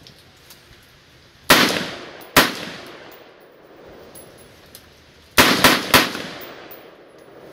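Five shots from a Smith & Wesson M&P15 Sport II 5.56 mm AR-15-style rifle, each echoing off the range: two about a second apart, then after a pause of about three seconds a quick string of three.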